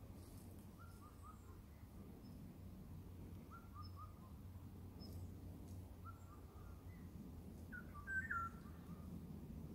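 Wild birds singing faintly in the forest: a short phrase of a few descending notes repeated about every two and a half seconds, a louder fluty phrase near the end, and small high chirps, over a steady low background rumble.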